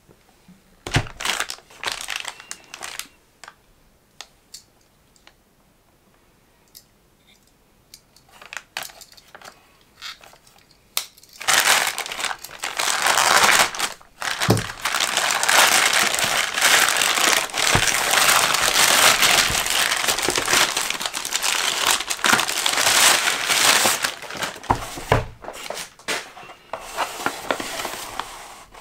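Plastic poly mailer bag crinkling as it is handled, with scattered short rustles at first. Then, about eleven seconds in, it is torn open with a long stretch of loud, continuous plastic crinkling and tearing, which thins to occasional rustles near the end.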